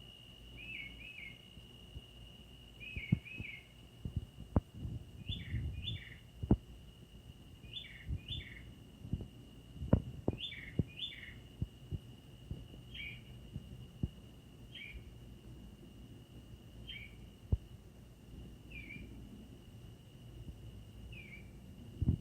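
A bird calling over and over with short down-swooping notes, given in quick pairs at first and then singly about every two seconds. A steady high-pitched whine runs underneath, and there are scattered sharp low knocks.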